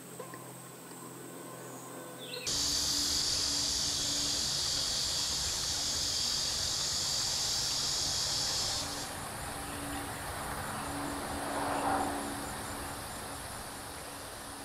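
Insects calling in the woods. A faint high steady trill at first; a couple of seconds in, a loud steady high-pitched buzz starts suddenly and stops about six seconds later, leaving a softer high trill.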